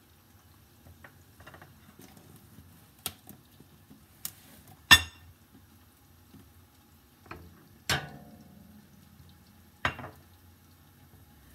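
Potatoes frying in oil in a covered pan on a gas burner: a low steady hiss with sharp pops and ticks every second or two, the loudest about five seconds in.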